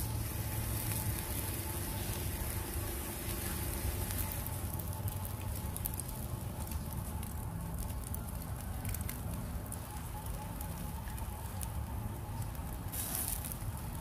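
Fish grilling on a grill over a fire, with a steady sizzle and crackle throughout.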